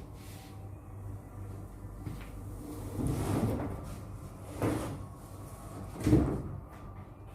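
Partition panels being pulled loose and handled: three separate bumps with scraping, the loudest about six seconds in.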